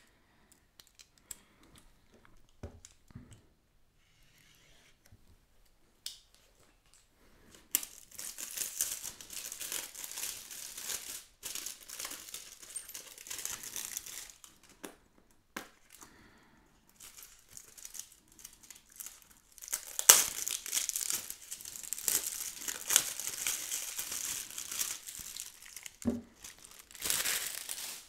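Thin clear plastic wrapping film being peeled and torn off a cardboard earphone box, crinkling. After a few light handling clicks, the crinkling runs in two long stretches with a short pause between, the second one louder.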